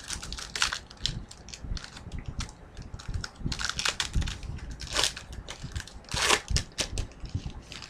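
A trading-card pack's wrapper being torn open and crinkled in the hands: a run of irregular rustles and crinkles.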